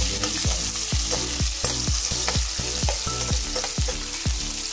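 Garlic sautéing in hot cooking oil in a pan, sizzling steadily, as the sauce is begun. Background music with a steady beat runs underneath.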